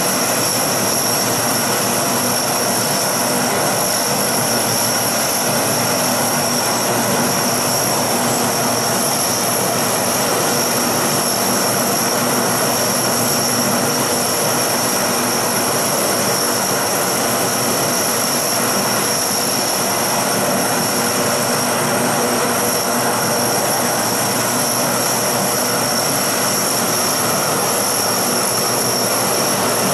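Beechcraft Model 18's twin radial engines running at low power as the aircraft taxis, a steady, even drone with propeller noise. A steady high-pitched whine lies over it throughout.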